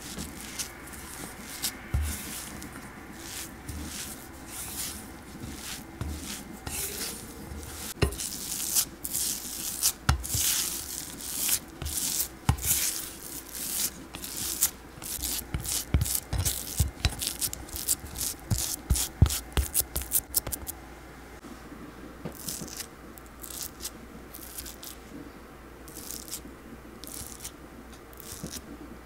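Silicone spatula scraping and mashing warm crumbled choco pies against a glass mixing bowl, pressing them together into one lump of cookie dough. A run of short scraping strokes, thickest in the middle and thinning out near the end, with a few dull knocks.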